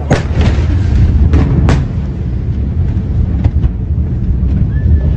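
Blast wave of the Beirut port ammonium nitrate explosion reaching the microphone: a sudden loud boom, a few sharp cracks within the next two seconds, then a heavy, continuous low rumble.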